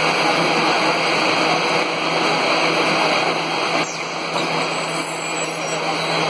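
Cardboard box production machinery running: a steady, loud mechanical noise with a constant low hum, and a couple of brief clicks about four seconds in.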